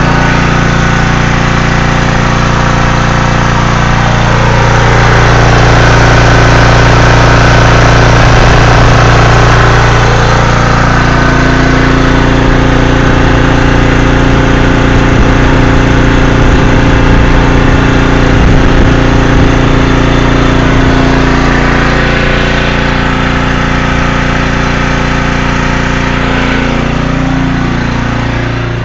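Briggs & Stratton portable generator engine running steadily and loudly close by, under the load of the house circuits during a power outage.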